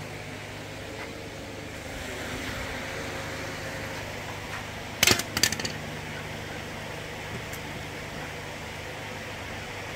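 Steady mechanical hum in the background, with a quick cluster of two or three sharp metal clanks about halfway through as tools knock against the engine.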